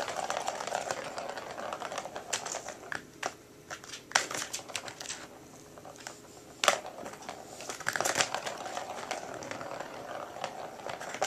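Plastic ball rolling and rattling around a circular plastic track toy as a cat bats at it. The rattling comes in two long spells, the second starting with a sharp knock about six and a half seconds in.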